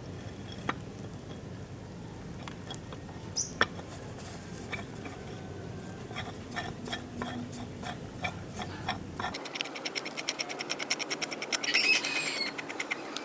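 Scattered light clicks and knocks, then, after about nine seconds, a fast, even run of clicking with a louder cluster near the end.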